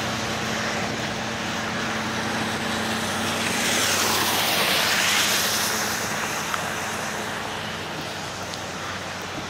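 Steady vehicle engine hum under traffic noise on a wet highway; a hiss of tyres on wet pavement swells and fades about halfway through as a vehicle passes.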